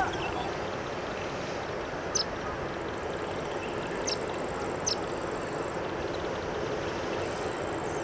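Indian silverbill (white-throated munia) calling: short, sharp, high peeps, about four of them, a second or two apart, over a steady background hiss.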